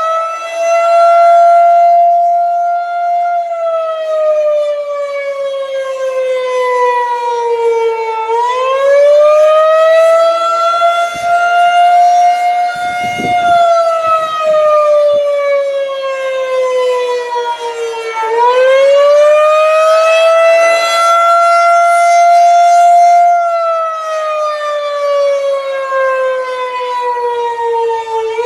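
Federal Signal 2001-130 outdoor warning siren sounding the attack signal, here on a scheduled test. Its single tone rises over about two seconds, holds briefly, then slowly falls, and starts rising again about every ten seconds.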